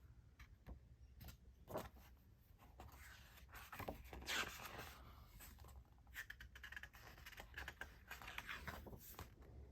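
Faint rustling and small clicks of album pages and paper being turned and handled, with scattered scratchy scrapes.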